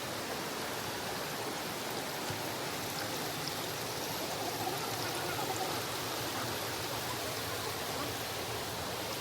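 Steady rush of water from a waterfall, an even continuous hiss at a constant level.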